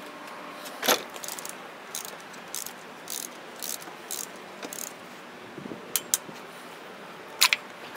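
Ratchet of a torque wrench clicking in short runs as a spark plug is tightened down, with a few sharper, louder clicks, the loudest a quick pair near the end.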